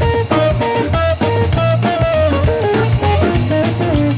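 A jazz quartet playing live: a semi-hollow electric guitar plays a moving single-note line over a sustained Hammond organ bass and a drum kit.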